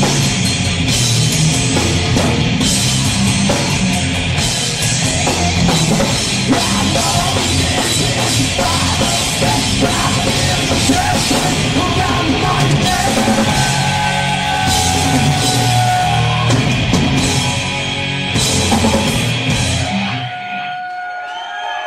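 Live heavy rock band playing loudly: two distorted electric guitars, bass guitar and a drum kit. About twenty seconds in, the band stops and the crowd starts cheering and whistling.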